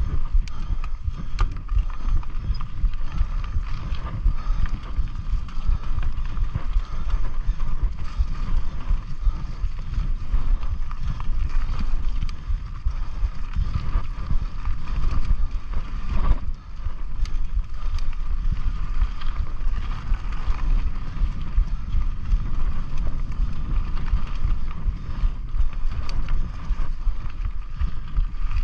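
Mountain bike riding a dirt trail: steady wind rumble on the microphone over tyre noise, with scattered sharp rattles and knocks from the bike over bumps.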